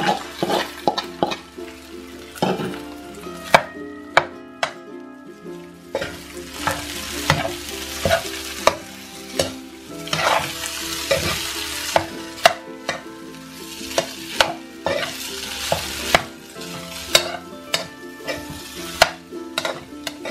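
Fried rice sizzling in a hot oiled frying pan as a spatula stirs and breaks up the cooked rice and scrambled egg, with repeated irregular knocks and scrapes of the spatula against the pan.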